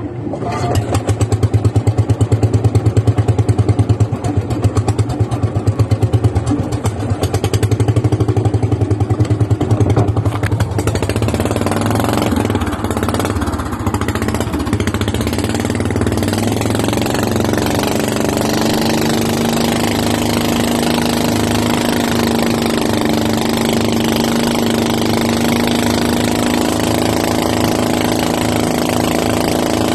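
Motorboat engine running under load while towing a banana boat. It pulses with a loud, even beat for about the first ten seconds, then runs more evenly with a steady pitch.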